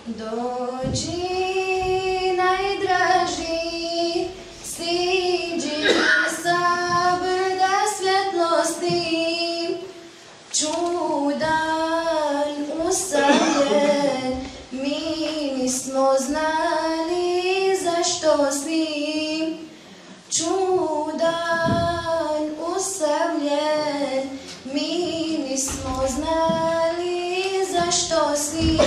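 A young girl singing an unaccompanied Islamic devotional song into a microphone, in long melodic phrases with short breaks for breath between them.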